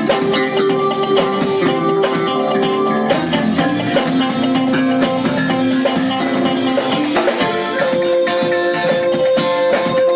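Jazz-fusion band playing live: drum kit, electric bass, electric guitar and keyboards, with long held notes over busy, steady drumming.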